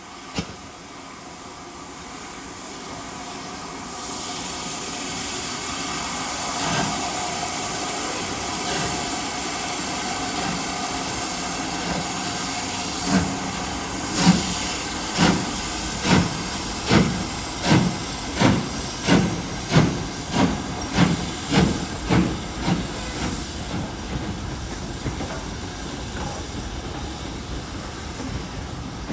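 Steam locomotive working: a steady hiss of steam, then a run of strong exhaust beats that come quicker and quicker, as when the engine gets away under load, fading into the rumble of the train on the rails.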